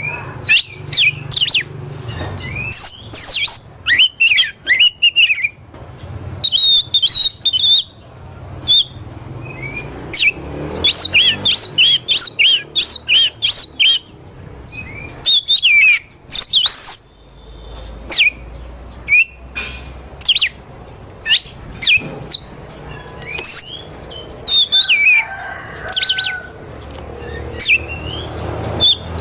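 Oriental magpie-robin (kacer) singing: rapid phrases of sharp, quickly rising and falling whistled notes, broken by short pauses.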